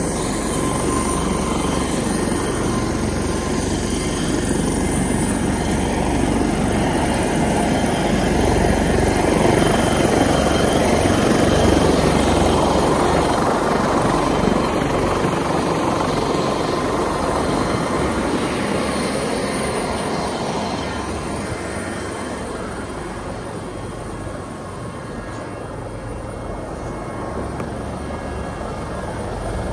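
Helicopter rotor and engine noise close by, a dense steady din that grows louder toward the middle and eases somewhat in the last third.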